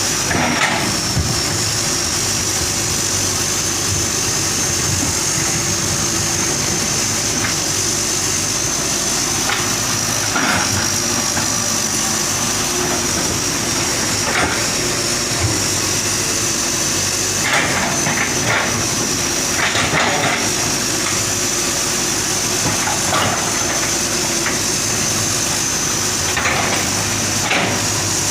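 Hitachi hydraulic excavator working: its diesel engine runs steadily under a high-pitched whine, with scattered metallic clanks and knocks.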